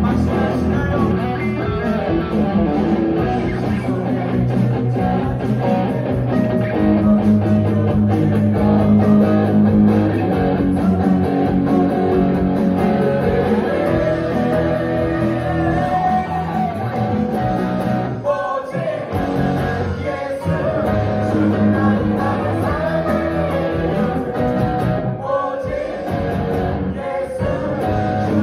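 Upbeat rock-style praise music: an electric guitar played along with a band, with singing, and a few short breaks about two-thirds of the way through.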